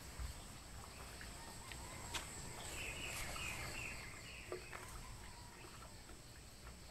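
Outdoor ambience with a bird chirping a short run of notes about three seconds in, and a few faint clicks and knocks.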